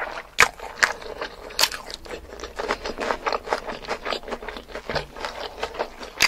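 Close-miked eating sounds of a person chewing spicy mutton curry with rice: wet mouth clicks and smacks at an uneven pace, a few of them sharply louder in the first two seconds.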